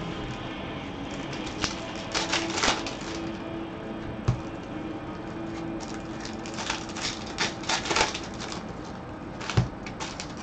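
Baseball trading cards being flipped and slid off a stack by gloved hands: clusters of quick papery clicks and swishes, with a couple of sharper knocks, the loudest near the end.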